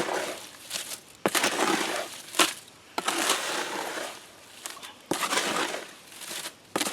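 Concrete being mixed by hand with a little water: a series of gritty scraping strokes through the wet, stiff mix, with a few sharp knocks between them.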